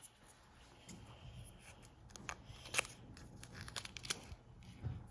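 Paper cupcake liner being peeled off a cupcake by hand: faint paper rustling with a few sharp little clicks, the sharpest about three seconds in.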